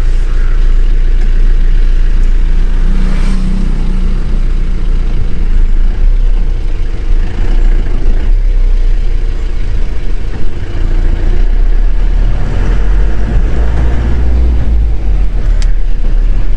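Mahindra Bolero Pik-Up's 2523 cc diesel engine running as the loaded pickup drives along, heard from inside the cab: a steady, low engine drone with slight rises and falls.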